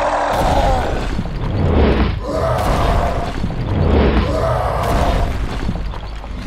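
Cartoon fight sound effects: heavy thuds and booms of a giant brute slamming an opponent into the ground, with a pitched rise-and-fall sound returning about every two seconds.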